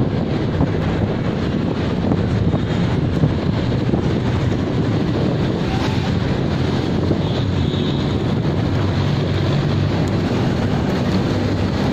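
Wind buffeting the microphone on a moving bicycle, a steady low rumble, over the sound of passing city traffic.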